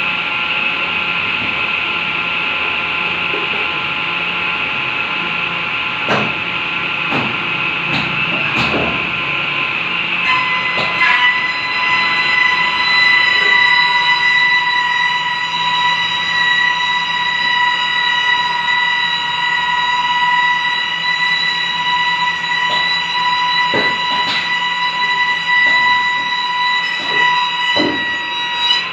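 Electric woodworking machine running with a steady motor whine. About ten seconds in, a stronger, higher whine sets in and holds, with a few knocks and clicks.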